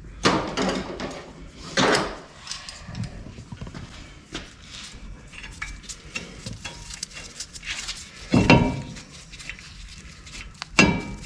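Steel brake rotor being handled and fitted onto a truck's front wheel hub: metal clanks, clinks and scraping, with a few louder knocks spread through.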